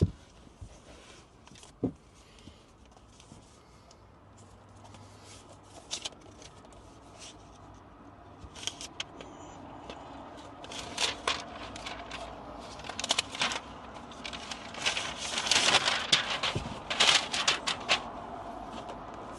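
Hands handling a laptop's packaging: scattered clicks and scrapes with crinkling of paper or plastic wrap, sparse at first and growing busier and louder in the second half.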